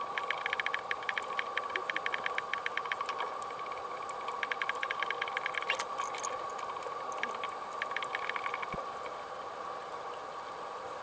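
Underwater sound: a steady hum, with three spells of rapid, evenly spaced clicking that stop about three quarters of the way through.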